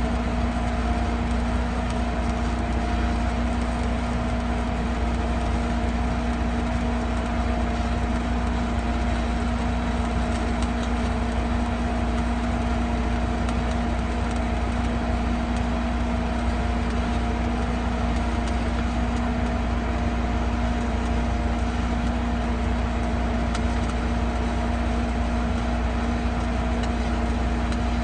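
Welding machine running steadily, a constant hum with an even hiss and fine crackle over it.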